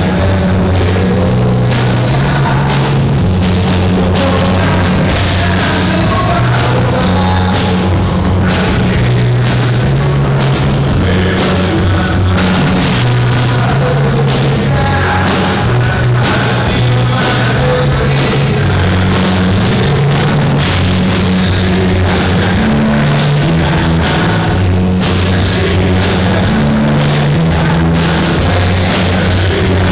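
Live rock band playing a song with a drum kit and a bass line that moves from note to note, loud and without a break.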